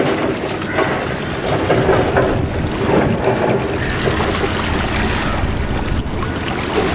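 Wind buffeting a camcorder's built-in microphone, a rumbling hiss that swells and eases, over steady waterfront noise.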